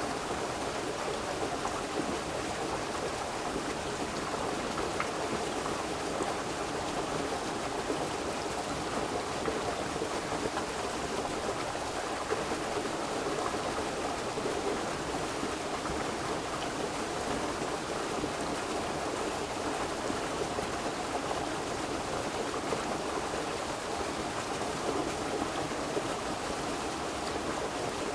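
River water flowing steadily, an even rushing with no breaks.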